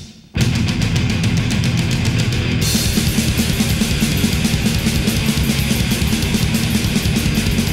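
Thrash metal band recording: distorted guitars and fast drums. It stops dead for a split second at the start, then the full band crashes back in. The sound brightens about two and a half seconds in.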